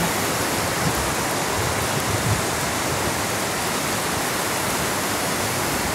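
Steady rushing of a fast mountain river, an even noise with no breaks.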